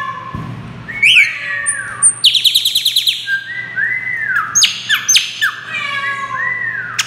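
Chopi blackbird (passo-preto) singing loudly: a varied run of quick repeated notes, arching whistles and sweeping chirps. The song mixes in imitation of a great kiskadee's call.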